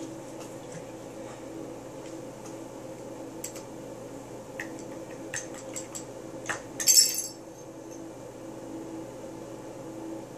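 Small metal parts of an M4 bolt carrier group clicking and clinking as they are handled, with one louder metallic clink about seven seconds in, over a steady background hum.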